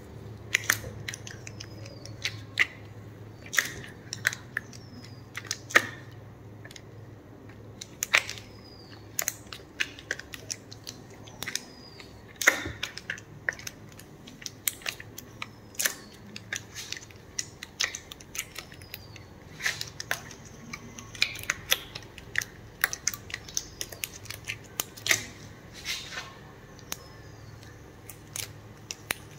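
Fiberglass casting tape crackling and rustling as wet rolls are unwound and wrapped around a limb by gloved hands, in irregular sharp clicks and crackles.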